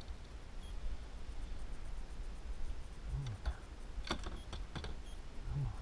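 Steady low rumble of wind and water on the action camera's microphone, with a quick cluster of small sharp clicks and knocks about three to five seconds in, while a tiger muskie is released over the side of the kayak.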